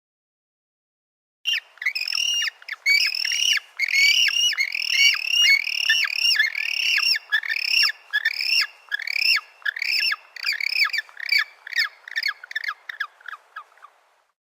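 Penguin chirping: a long run of short, high calls, each sliding down in pitch, two to three a second. The calls start about a second and a half in, grow quicker and shorter toward the end, then stop.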